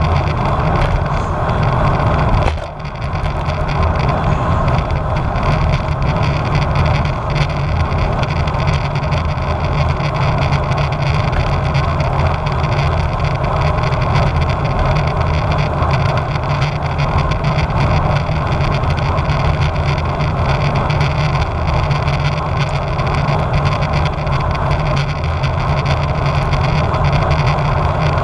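Wind rushing over the microphone of a GoPro mounted on a road bike while riding, a loud, steady rumble. It drops out briefly about two and a half seconds in.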